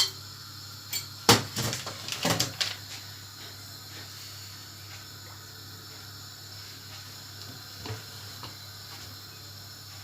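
Kitchen clatter of dishes and utensils: a quick run of knocks and clinks in the first few seconds, the loudest about a second in, then two lighter knocks near the end, over a steady low hum.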